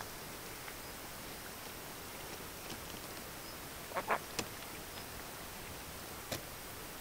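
A crested kingfisher giving a short, harsh double call about four seconds in, followed by two sharp clicks, over a steady faint hiss.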